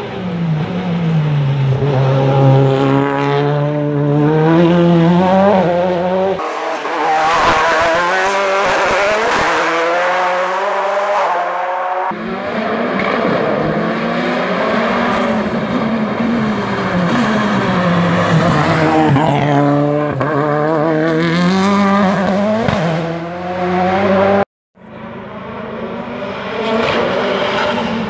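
Skoda Fabia WRC rally car's turbocharged four-cylinder engine at full race pace. The revs drop as it brakes and downshifts for corners and climb again as it accelerates out, over and over. The sound cuts out for a moment near the end, then the engine comes back.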